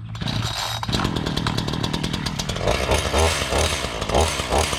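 Black Max 16-inch 38cc two-stroke gas chainsaw running loudly, its engine pulsing rapidly.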